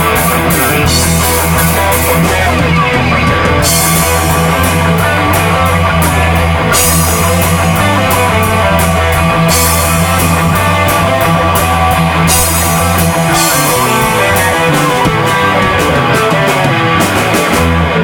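A rock band playing loud heavy punk/metal: distorted electric guitar over bass and a drum kit with steady cymbal hits. The cymbals drop out right at the end.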